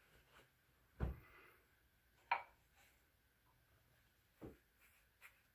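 Mostly quiet room with three brief knocks or clicks, the sharpest and loudest about two seconds in.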